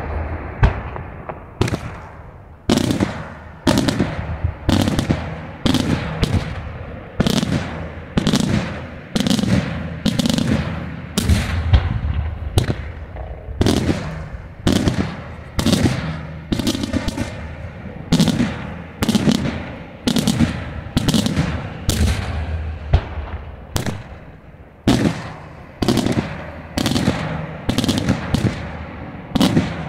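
Daytime aerial fireworks shells bursting high overhead in a rapid, steady run of loud bangs, a little more than one a second, each trailing off in echo.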